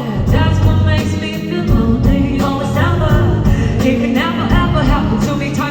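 Pop song: a singer's voice over a steady beat.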